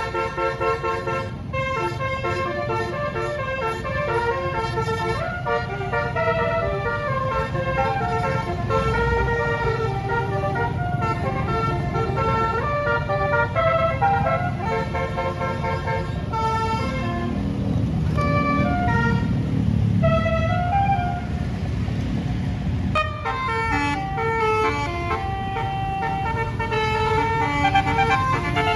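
Multi-tone 'telolet' bus air horns (Basuri) playing a melody of short stepped notes, over a low rumble.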